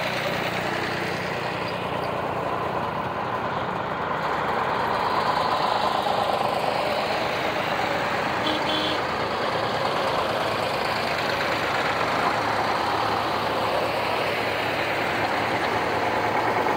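Engines of a procession of vintage farm tractors running as they drive past one after another.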